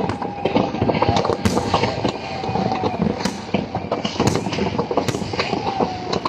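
Fireworks display: a dense, continuous crackle of small pops from fountain and crackling aerial shells, with a sharper bang about once a second.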